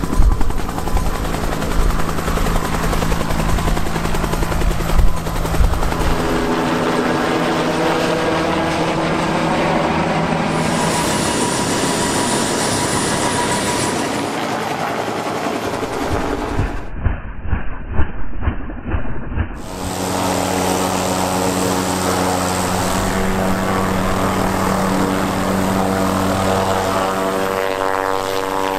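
Helicopters hovering and lifting off at close range, their rotors beating over steady turbine engine noise. In turn these are a Bell UH-1 Huey, an AH-1 Cobra and an MD 500-series. The sound changes abruptly several times, with a brief muffled dip a little past the middle.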